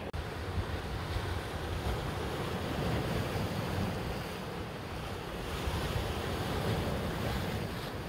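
Atlantic surf breaking and washing over a rocky shore, a steady rush that swells and eases with the waves, with wind buffeting the microphone underneath.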